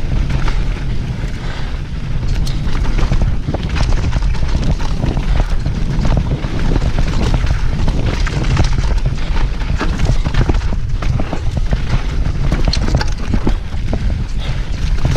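Downhill mountain bike ridden fast down a rough trail: a steady low rumble of wind and tyres, with a dense, irregular clatter of knocks and rattles from the bike as it hits bumps.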